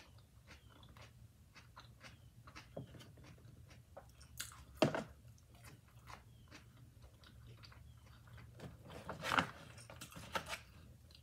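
Close-miked chewing of a mouthful of veggie burger on a soft toasted bun: a run of faint, wet mouth clicks, with two louder short mouth sounds, one about halfway through and one a little before the end.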